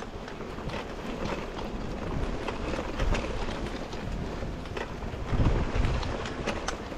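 Wind buffeting a handlebar-mounted action camera's microphone as a mountain bike rolls over a grassy double-track, with tyre noise and scattered clicks and rattles from the bike. The wind rumble swells louder about five seconds in.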